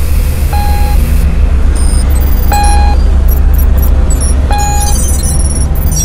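Sound design for a cinematic electronic intro: a deep, steady bass drone with a short electronic beep three times, about two seconds apart, and quick high-pitched digital blips near the end, like a computer scanning display.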